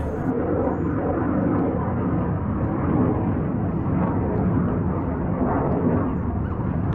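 Fighter jet flying over: a steady, really loud jet rumble.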